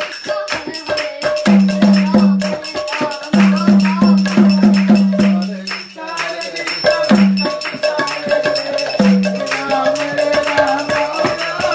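Lively rhythmic music: a barrel-shaped hand drum beaten by hand in quick strokes, with dense jingling percussion and short repeated low drum notes.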